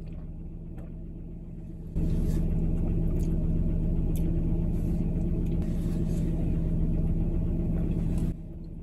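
Steady low rumble and hum inside a stationary car. It steps up abruptly about two seconds in and drops back near the end.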